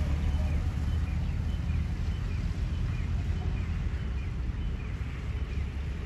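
Outdoor roadside ambience: a steady low rumble of road traffic and wind on the microphone, with a small bird chirping faintly about twice a second.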